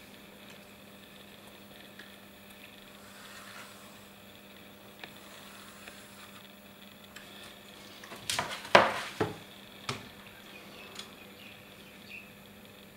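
Faint scratching of a pencil drawn along a metal ruler on mat board, then, about eight seconds in, a short clatter of several sharp knocks as the metal ruler is shifted and set down on the board, the loudest sound here.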